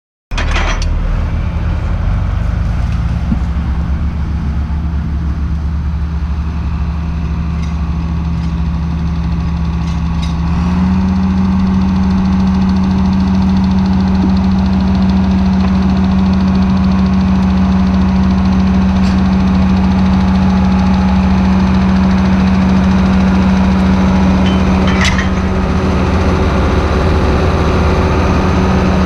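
Diesel engine of heavy farm harvesting machinery running steadily, its engine speed stepping up slightly about ten seconds in and then holding.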